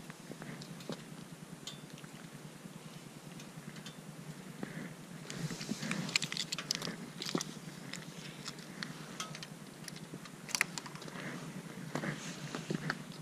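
Close handling noise from a GoPro Hero 5 action camera being gripped and adjusted by hand: a run of clicks, scrapes and rubbing against the camera body, busiest from about five seconds in, with the sharpest clicks around six seconds and again near ten and a half seconds.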